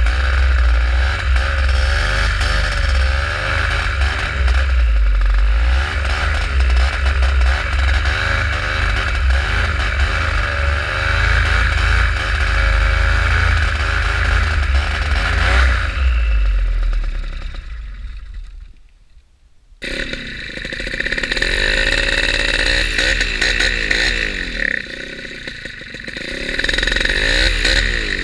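Simonini Mini 2 two-stroke paramotor engine and propeller being revved on the ground, its pitch wavering up and down rather than holding steady; the engine will not perform well at full throttle. About two-thirds of the way through it winds down almost to silence, then abruptly it is running again.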